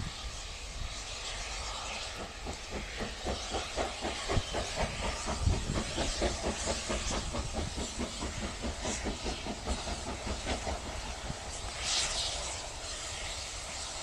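Steam locomotive hauling a passenger train, exhausting with a quick, even beat of chuffs over a steady hiss of steam, with a brief louder rush of hiss near the end.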